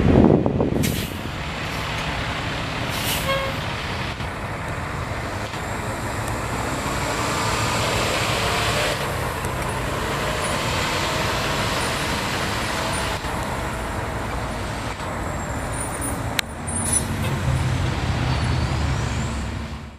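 Road traffic and a heavy truck's engine running steadily. A loud burst comes in the first second. A sharp click comes about 16 seconds in, and the engine grows louder after it.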